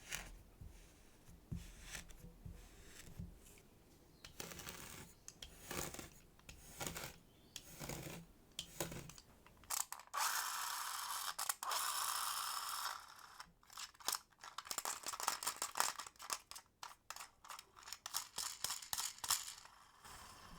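Kinetic sand being handled and worked with tools: a series of short scraping strokes, one steady scrape lasting about three seconds near the middle, then quicker scraping strokes of two or three a second toward the end.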